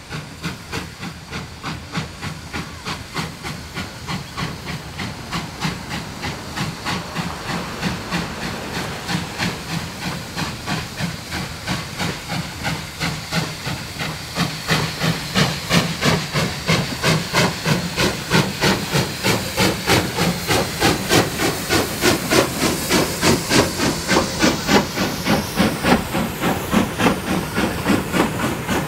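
Ex-Victorian Railways J class 2-8-0 steam locomotive J549 hauling a train, its exhaust beating steadily at about two and a half chuffs a second with hissing steam, growing louder as it draws near and passes.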